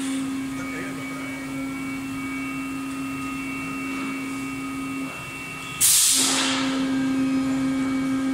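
PET preform injection moulding machine running with a steady machine hum, which drops out for a moment about five seconds in, then a sudden loud burst of compressed-air hiss that fades over about a second.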